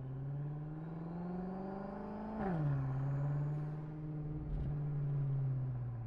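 BMW M5 F10's twin-turbo V8 running through an Akrapovič Evolution titanium exhaust: it rises in pitch under acceleration, drops sharply at a gear change about two and a half seconds in, then runs on with the pitch slowly easing down.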